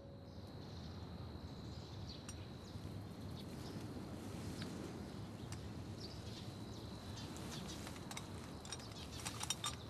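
Quiet countryside ambience: a steady high insect drone with scattered bird chirps over a soft noise bed, and a brief run of sharper ticks near the end.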